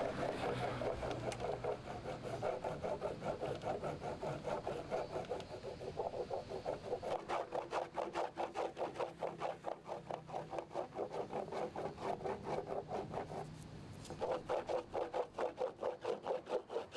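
A bar of surf wax rubbed on a surfboard deck in quick back-and-forth strokes, about four or five a second, with a short pause about two-thirds of the way through.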